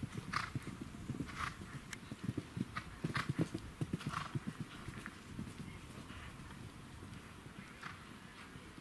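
A horse's hooves drumming on grass turf at a canter: quick, irregular dull thuds that grow fainter after the middle as the horse moves off. A brief, breathy rushing sound comes roughly once a second.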